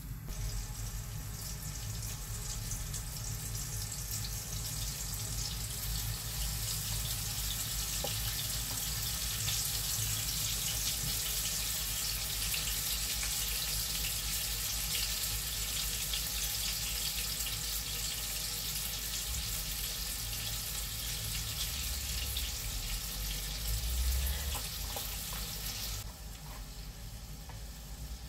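Pieces of marinated minced beef frying in hot oil, a steady sizzle that builds over the first few seconds and stops abruptly near the end, over a low hum.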